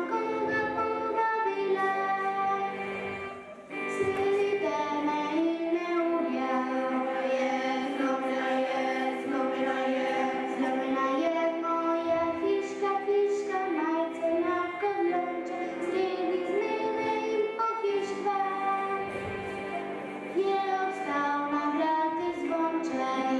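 Music: a song sung in a girl's or child's voice over instrumental accompaniment, with long held notes and a brief break about three and a half seconds in.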